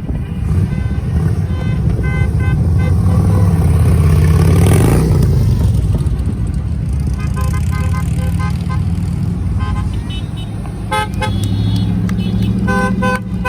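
Car horns honking in many short toots over the rumble of passing cars, with one vehicle passing close and loud about four to five seconds in.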